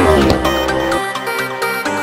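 Electronic music with a steady beat. Under it in the first second, a sport motorcycle's engine passes close by, its pitch dropping steeply, and the engine sound cuts off about a second in.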